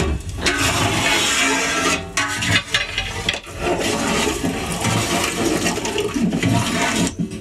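Thick liquid sloshing and splashing in a large metal cooking pot as it is stirred with a long ladle.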